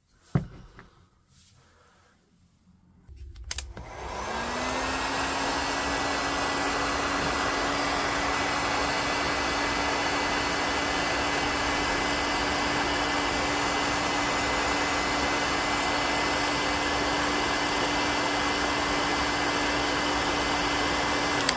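A sharp click just after the start, then a handheld electric heat gun is switched on. Its fan spins up with a short rising whine and settles into a steady whir and rush of hot air, used to melt the old covering off a wire's end.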